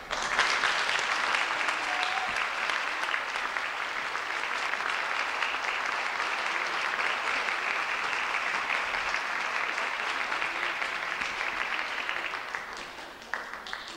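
Audience applause, breaking out all at once, holding steady, then dying away near the end.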